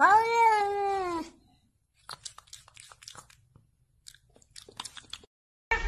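A domestic cat's single long meow, lasting over a second, its pitch jumping up and then sliding slowly down. Faint scattered clicks and crackles follow.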